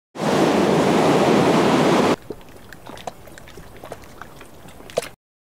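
Ocean water rushing like breaking surf, loud for about two seconds, then cut suddenly to a much quieter wash of water with scattered small ticks. It stops abruptly near the end.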